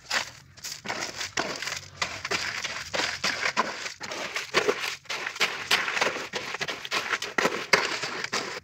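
A shovel churning crushed stone through red cement-and-colour-powder slurry in a mixing pan, in repeated gritty, crunching, scraping strokes. This is the mixing of the red colour coat for tuff tiles.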